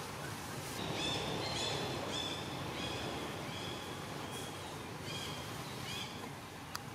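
A bird repeating a short high call about eight times, roughly one note every two-thirds of a second, over steady outdoor background noise. A single sharp click comes near the end.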